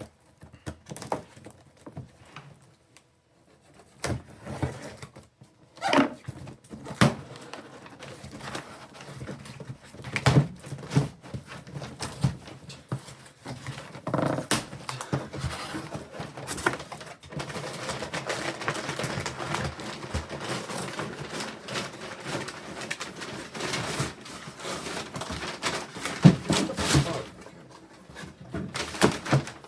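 Cardboard box being opened and its contents handled, with scattered knocks and clicks and a stretch of steady rustling and scraping in the middle and later part.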